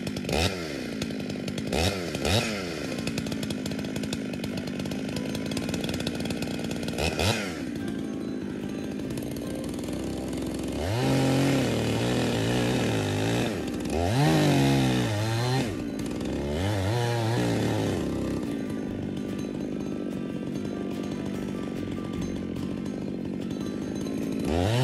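Two-stroke chainsaw idling with a few quick throttle blips. It then runs at full throttle in three stretches of two to three seconds each, its pitch wavering under load as it cuts into the trunk of a dead bur oak. It drops back to idle and revs up again at the very end.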